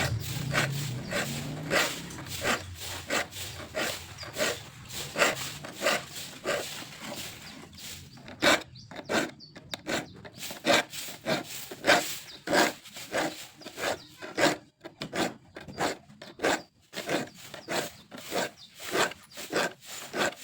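Freshly sharpened hand saw cutting through a randu wood board in steady back-and-forth strokes, a little under two a second.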